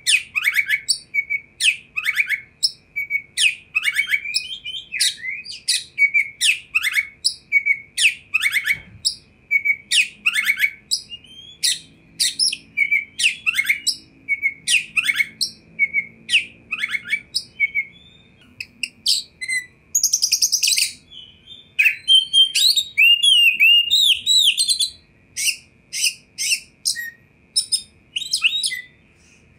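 Oriental magpie-robin (kacer) singing a long, varied song of short sharp whistles and chirps, with a buzzy rattle about twenty seconds in followed by a run of sliding whistles.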